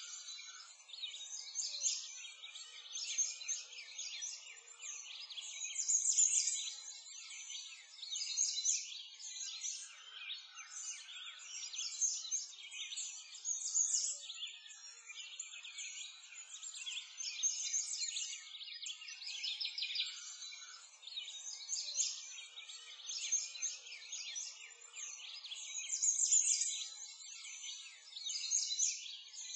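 A chorus of small birds chirping, a dense run of high, short calls that swells and fades every few seconds, with no low sounds beneath it.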